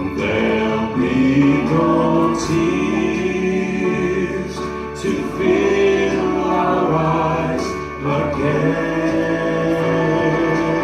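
Gospel music: voices singing long held notes in choir-like harmony over an instrumental accompaniment.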